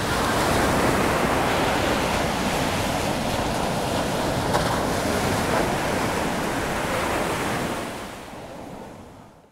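Ocean waves: a steady rush of surf that fades out over the last second and a half.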